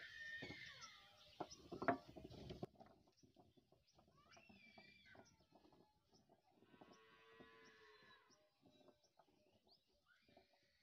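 Chunks of cut fruit clattering off a steel plate onto a cloth for the first couple of seconds. Faint bird chirps and a drawn-out animal call about seven seconds in follow.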